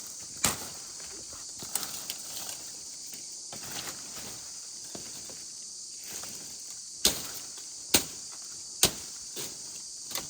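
Steady high-pitched insect chorus, with a few irregular sharp cracks and crunches, the loudest about halfway through and near the end.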